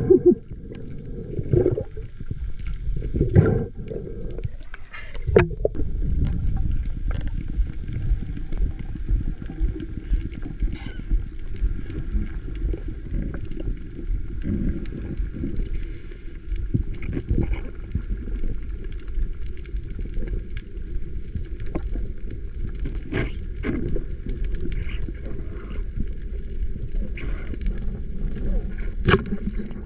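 Underwater ambience picked up through a diving camera's housing: a steady low rumble of moving water, with occasional sharp clicks.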